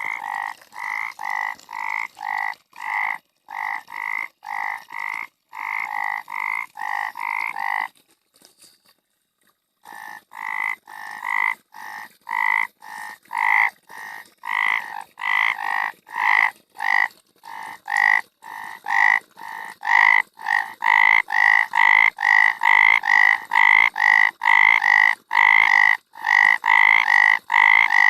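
A frog croaking over and over in short calls, roughly two a second. The calls break off for a second or two about eight seconds in, then resume and grow louder over the last third.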